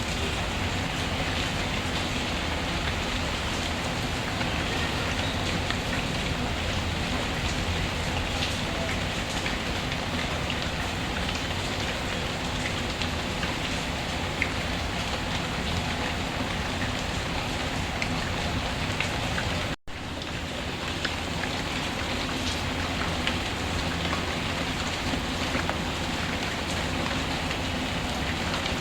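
Steady rainfall hiss with scattered small crackles and pops from a wood fire. About twenty seconds in, the sound cuts out for a split second and comes back.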